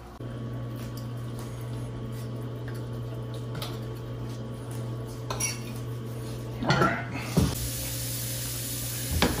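Cutlery and plates clinking, with a few sharper clatters around the middle and a louder cluster about two-thirds of the way in, over a steady low hum. A faint hiss comes in over the last couple of seconds.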